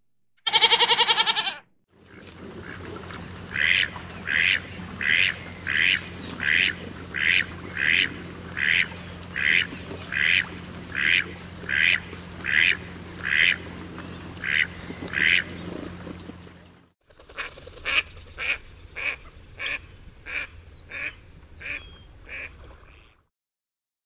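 A goat's single short bleat about half a second in, the loudest sound here. Then a duck quacking in a steady series, about one quack every 0.7 s, and after a brief break a second run of quicker, fainter quacks.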